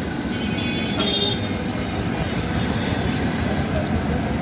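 Hot oil sizzling and bubbling steadily as batter-coated garlic cloves deep-fry in a large wok, over a low rumble.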